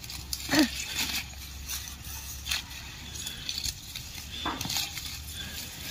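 Rustling and crackling of radish leaves and stalks as radish plants are pulled and gathered by hand, in a string of short irregular crackles. A short rising cry about half a second in.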